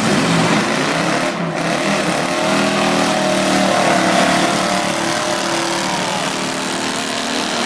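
Several demolition derby cars' engines running and revving together, pitches rising and falling gently under a dense wash of noise.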